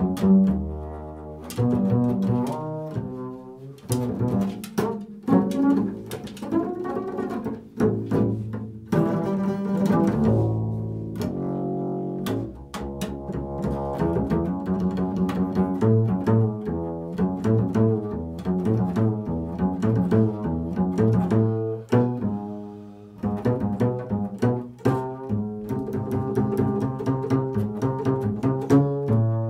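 Solo upright double bass played pizzicato: an improvised line of plucked notes, some left to ring, with a couple of brief dips between phrases.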